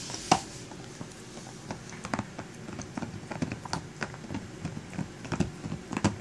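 A dog chewing and mouthing a toy held in his jaws: irregular clicks and wet smacks of teeth and mouth, several a second.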